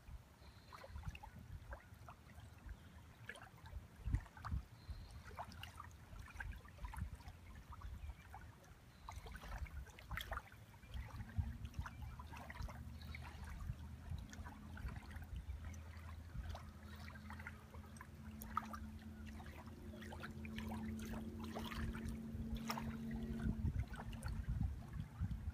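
Small ripples lapping gently at a sandy lake shore, with many faint little splashes and trickles. About halfway through, a steady low engine hum joins in and stops shortly before the end.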